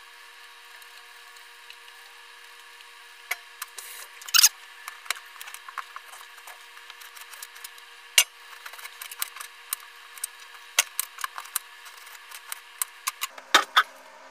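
Hand vegetable peeler scraping the skin off potatoes, with peelings and pieces knocking against a stainless steel pot: an irregular run of short scrapes and clicks that starts about three seconds in, with louder knocks at about four and eight seconds and just before the end.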